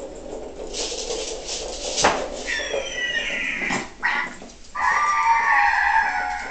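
Noise-making toy ball playing recorded farm-animal calls: two stretches of animal sound, the second and loudest starting about five seconds in.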